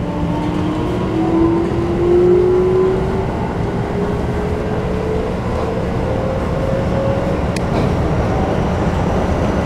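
Keikyu New 1000 series train running, heard inside the car: the Toyo IGBT-VVVF inverter's motor whine rises slowly in pitch over steady rumble as the train gathers speed.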